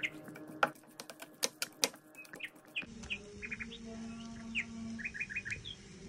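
A spatula stirring onions in a non-stick frying pan, with quick clacks and scrapes against the pan for about the first three seconds. Then comes a steady frying hiss with a low hum. Small birds chirp in short runs throughout.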